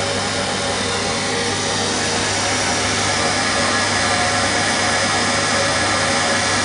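Steady fan-like rushing noise with a constant low hum from the running lab equipment, growing slightly louder about two seconds in.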